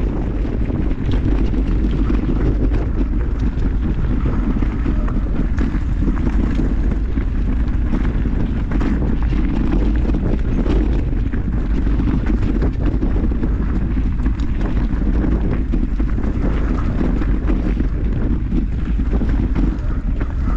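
Wind rushing over the microphone of a camera riding on a mountain bike, with scattered knocks and rattles from the bike and tyres over rough trail.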